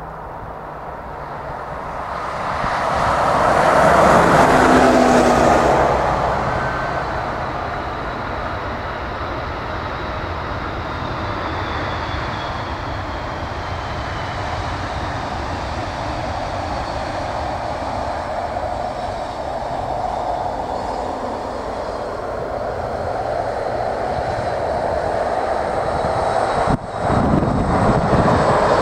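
Airbus A330-302 jet engines, General Electric CF6-80E1 turbofans, roaring as the airliner lands and rolls out along the runway. The roar swells to its loudest about four seconds in, then settles into a steady rumble. It breaks off for a moment near the end and returns louder.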